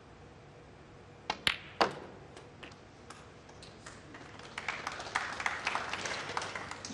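Snooker cue striking the cue ball, then sharp clicks of the balls colliding about a second in, with a few softer knocks of balls after. From about four and a half seconds, a spell of scattered light clapping from the crowd.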